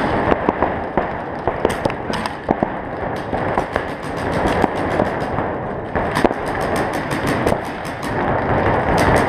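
Pump-action paintball markers firing, many sharp pops in irregular succession, coming thickest in the last few seconds, over a steady background din.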